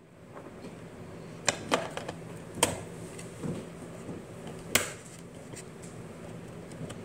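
AA batteries being pressed into the plastic battery compartment of an Echo Wall Clock: several sharp clicks as they seat against the contacts, over a low steady hum.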